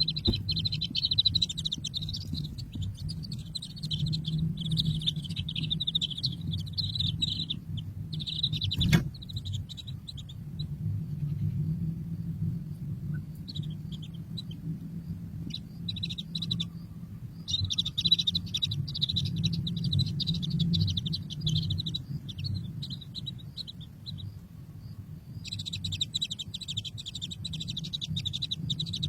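Baby birds chirping rapidly and high in long stretches that stop and start, over a steady low hum. A single sharp click about nine seconds in.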